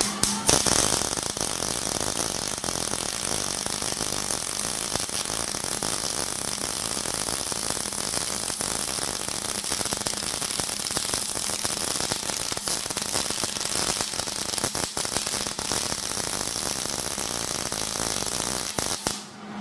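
MIG welding arc laying a butt weld on eighth-inch mild steel: a continuous crackle packed with small pops, which cuts off suddenly near the end. The wire speed and voltage are set right for this steel.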